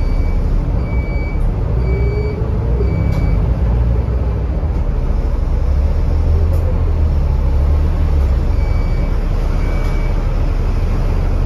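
Bus engine and road rumble heard from inside the moving bus: a steady, deep drone. A short high electronic beep repeats about once a second for the first three seconds, stops, and starts again near the end.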